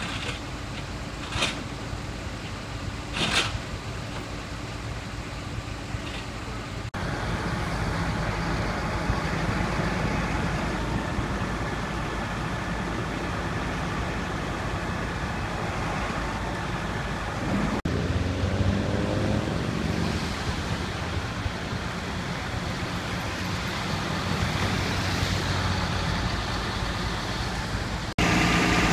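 Road traffic and vehicle engines running, in several cut-together clips. There are two short sharp sounds in the first few seconds, and about eighteen seconds in an engine revs up.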